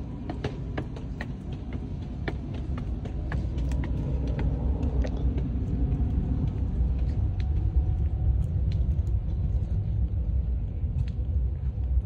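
Wind buffeting the phone's microphone: a fluctuating low rumble that grows louder about four seconds in. Scattered light clicks sound over it, most of them in the first few seconds.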